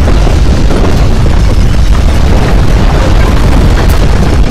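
Loud, steady deep rumble of a simulated earthquake, the ground-shaking sound laid over the scenario.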